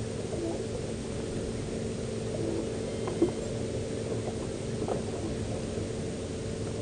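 Steady hum of a boat's engine over a hiss of wind and sea, with a few faint clicks and a sharp tap about three seconds in.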